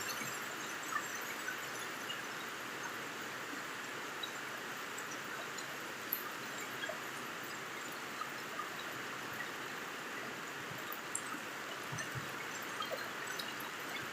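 Steady rain falling: an even hiss with scattered small drip ticks.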